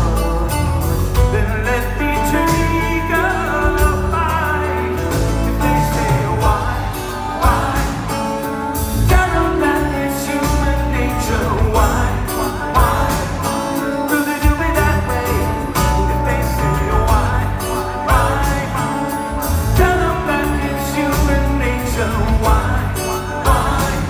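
Live rock band playing a slow song, a male lead singer's voice over electric bass and band accompaniment, heard from the audience through the hall's sound system.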